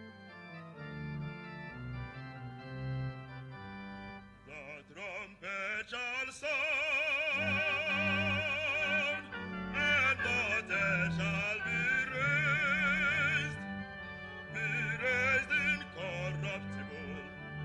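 Bass soloist singing with a wide vibrato and long held notes over instrumental accompaniment. The accompaniment plays alone for the first few seconds and the voice comes in about four seconds in.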